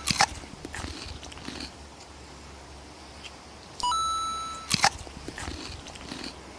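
An electronic two-note beep, rising a step and fading over under a second, followed by a sharp double click; the pair comes once near the start and again about four seconds in. Softer crackly ticks fall between them.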